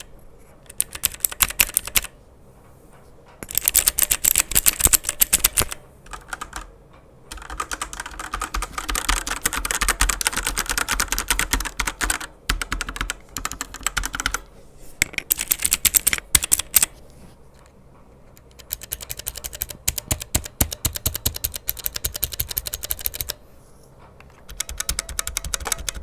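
Fast typing on mechanical keyboards, in several bursts with short pauses, switching between a keyboard with Outemu Red linear switches and one with clicky blue switches. The blue switches give a sharp, clicky clatter; the reds a softer, more muted one.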